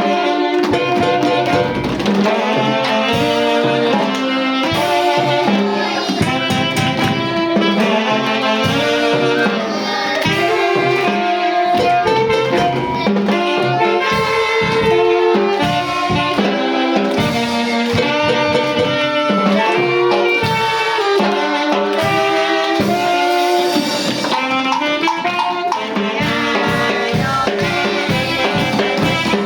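Brass band playing a lively tune, horns carrying the melody over a steady drum beat.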